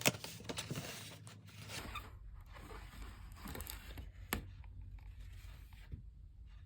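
Quiet rustling and crinkling of packaging being handled, with a few sharp clicks near the start and one more about four seconds in.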